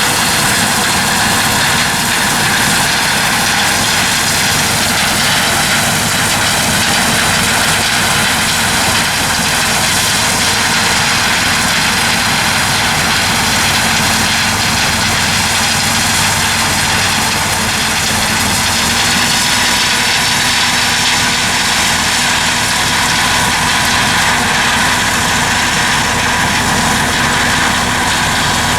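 Steady, loud drone of heavy engines and machinery running without a break, with a whining mix of steady high tones over a low rumble.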